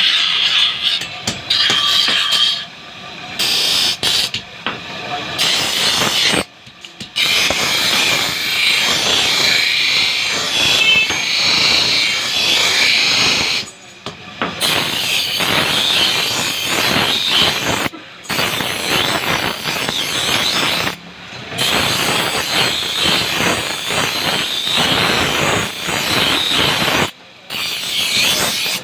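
Steel knife blank, cut from an old band saw blade, ground against a belt-driven grinding wheel: a harsh, high grinding hiss. It breaks off sharply and resumes several times.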